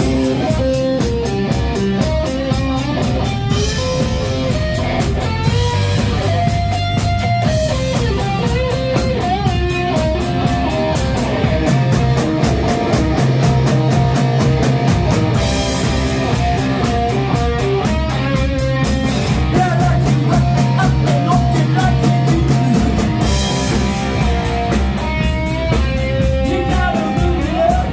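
Live rock band playing loudly: electric guitars over a steady drum-kit beat, with singing at times.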